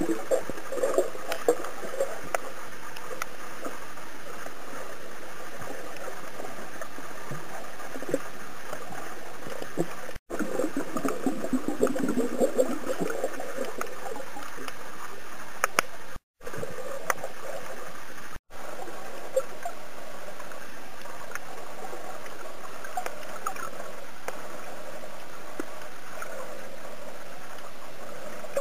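Water sounds heard through an underwater camera's housing: a steady muffled wash with swells of gurgling and scattered small clicks, cutting out briefly three times.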